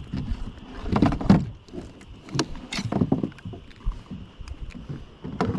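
Irregular knocks and bumps on a plastic fishing kayak's hull and fittings as a freshly caught grouper is handled aboard, over a faint steady high whine.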